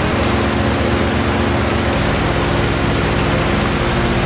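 Steady loud rushing noise from a fish-processing line, with low droning tones underneath that shift in pitch every couple of seconds.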